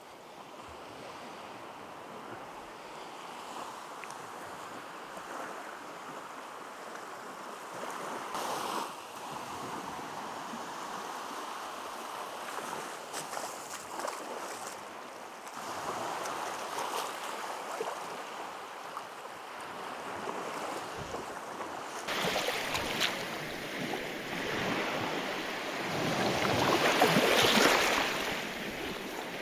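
Baltic Sea waves washing on the shore, with wind on the microphone. Near the end there is a louder stretch of water sloshing close by in the shallows.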